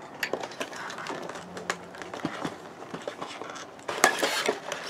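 Hands handling a cardboard doll box and its packaging: scattered light taps and clicks, then a brief rustle of packaging about four seconds in.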